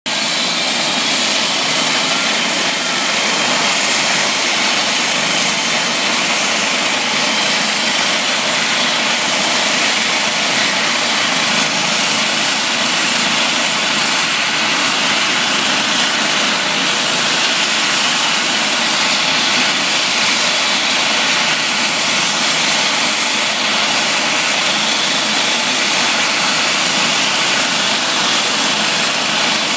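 Eurocopter EC135 medical helicopter idling on the ground with its twin turbine engines and rotor running, a steady rushing sound with a high turbine whistle over it.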